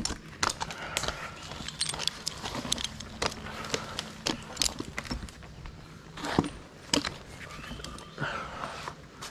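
Irregular sharp clicks and light clinking of gear being handled, over a faint steady low hum.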